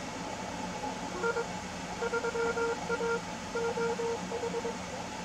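Morse code (CW) signal coming out of a Malahit-DSP receiver: a single tone of about 500 Hz keyed on and off in short and long elements, starting about a second in. It sits over a steady hiss of band noise.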